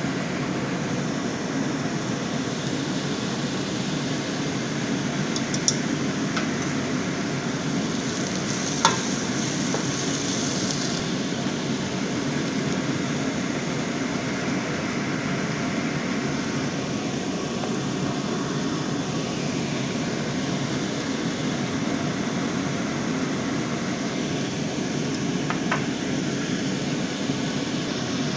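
Food sizzling as it cooks in a pan, over a steady low hum, with a few sharp clicks scattered through.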